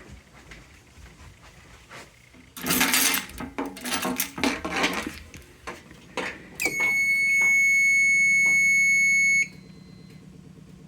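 A fire alarm control panel's piezo buzzer sounds one steady, high-pitched beep for about three seconds during a panel reset, then cuts off sharply. Before it comes a couple of seconds of handling and rustling noise.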